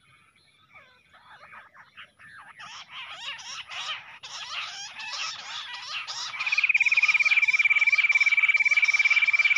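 Bush quail calling in a chorus of quick chirping whistles that grows steadily louder. About six seconds in, a loud, steady, rapid trill on one pitch joins in and keeps going.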